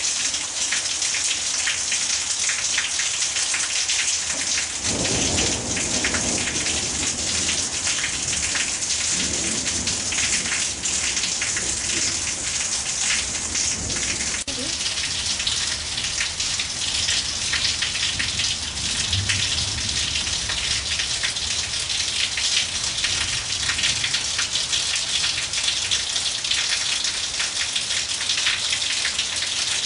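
Heavy monsoon rain pouring onto flooded ground, a steady, dense hiss of drops. From about five seconds in, low rumbles of thunder come and go under it.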